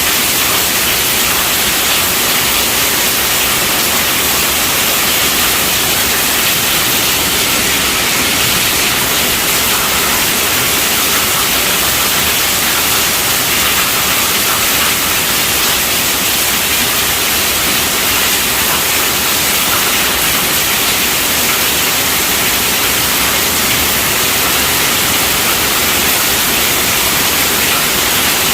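Heavy rain falling steadily on a tent roof, an even, unbroken hiss.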